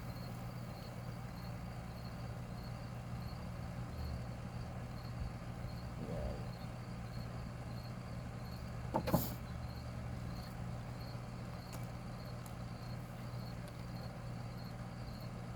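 A steady low hum under faint, evenly repeating insect chirping, with one sharp knock about nine seconds in.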